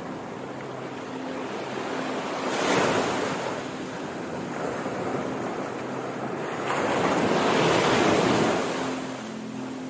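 Sea waves washing in as a steady rush of surf, swelling to two larger waves about three seconds in and again around seven to eight seconds in.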